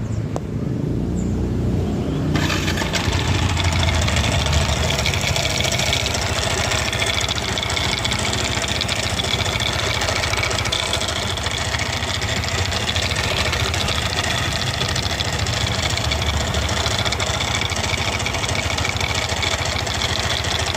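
Yamaha NMAX scooter's single-cylinder engine starting up, then running steadily at idle with a rough, coarse mechanical noise. The owner's friend places the noise in the middle of the engine.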